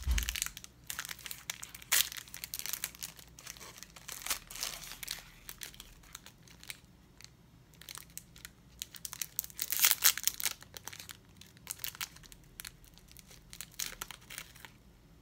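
Plastic snack wrapper crinkling and tearing as it is handled and opened, in irregular bursts of crackling, loudest about two seconds in and again near ten seconds.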